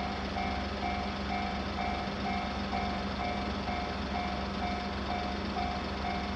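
Japanese railway level-crossing alarm ringing: one electronic bell tone repeating evenly, about two strikes a second, over a steady low hum.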